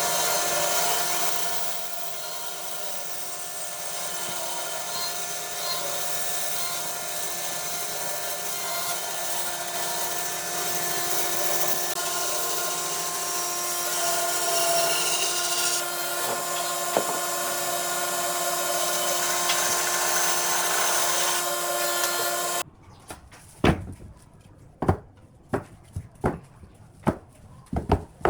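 An electric power tool running steadily as it works wood. About 23 seconds in it stops abruptly, and a series of sharp, irregular knocks on wood follows.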